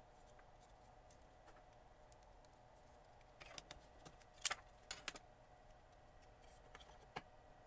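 Small plastic clicks and snaps as the display frame is unclipped from a Fluke 88 multimeter's plastic LCD holder: a handful of them between about three and a half and five seconds in, the loudest around four and a half seconds, and one more near the end. Otherwise near silence.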